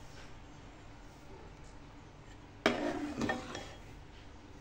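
A steel spoon knocks against a metal pot of semolina halwa once, about two-thirds of the way in, with a short second clatter just after it. Under it runs a faint, steady low hum.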